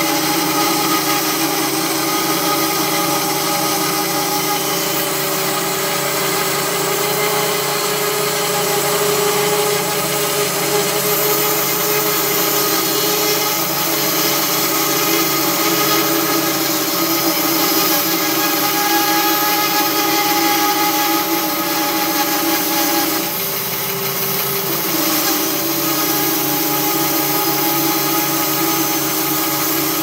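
OX SB-800 portable band sawmill running, its band blade cutting lengthwise through a log with a steady mechanical drone and several steady tones. The sound dips briefly about three-quarters of the way through, then carries on.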